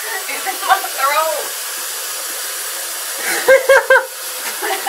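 Bathroom tap running steadily into the sink, with a woman's short strained vocal sounds as she tries to clear cinnamon from her burning throat. A wavering groan comes about a second in, then three quick loud coughing sounds about three and a half seconds in.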